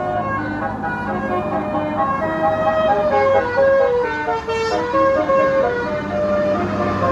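Basuri telolet multi-tone bus horn playing a quick melody of stepped notes, with the bus's engine running steadily underneath.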